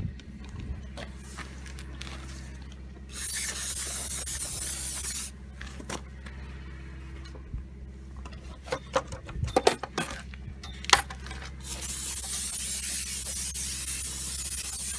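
Aerosol can of intake cleaner spraying into the small ports of an intake plenum in two long hisses: one of about two seconds, then a longer one starting near the end. In between come several sharp taps and clicks.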